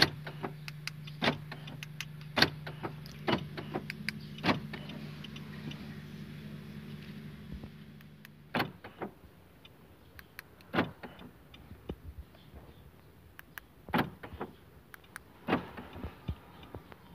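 Nissan Navara's central door locks clunking as a newly programmed remote key is tested, with sharp clicks every second or so. A steady low hum runs under the clicks and stops about halfway through.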